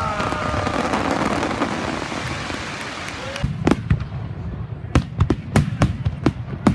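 Fireworks display: a crackling hiss from a burst fades over the first few seconds, then a rapid series of sharp bangs starts about three and a half seconds in, several a second.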